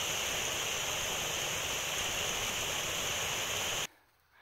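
Mountain stream rushing steadily over rocks; the sound cuts off abruptly near the end.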